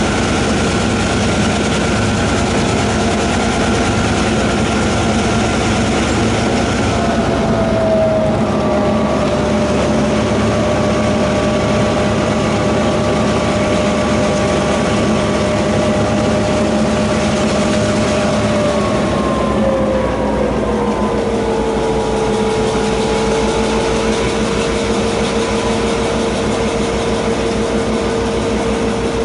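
DQ class diesel locomotive's engine running steadily while hauling a loaded ore train. Its note drops in pitch about seven seconds in and again about twenty seconds in, as the revs come down.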